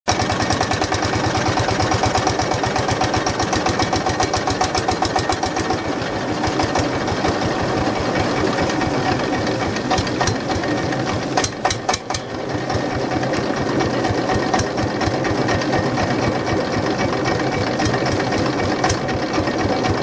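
Long-tail boat engine running steadily at cruising speed with a fast, even knocking beat. A few sharp clicks and a brief drop in level come about halfway through.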